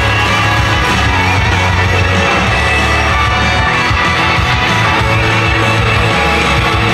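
Loud upbeat pop song, with a steady low beat, from a live idol-group stage performance.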